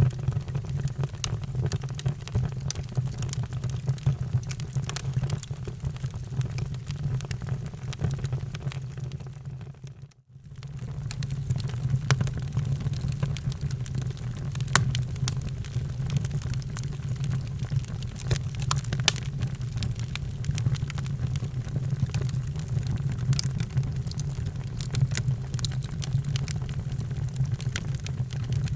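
Wood fire crackling, with irregular sharp pops over a steady low rumble. The sound fades almost to nothing about ten seconds in and comes straight back.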